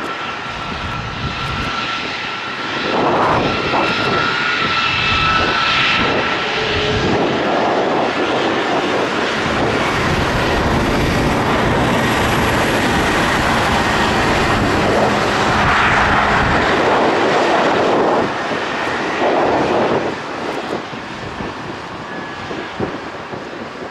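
KC-135R Stratotanker's four CFM56 (F108) turbofan engines running at taxi power as the jet rolls past, with a steady whine over the jet noise. It swells about three seconds in and falls away near the end as the tanker turns its tail.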